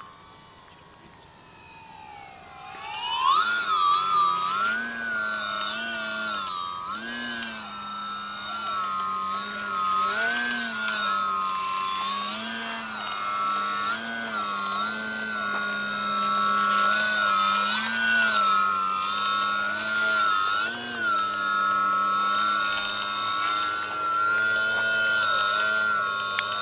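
DW Foamies Juka 40" electric aerobatic plane's motor and propeller whining while it hovers nose-up. The pitch rises and falls every second or two as the throttle is worked. It is fainter with a falling pitch at first, then climbs sharply and gets louder about three seconds in.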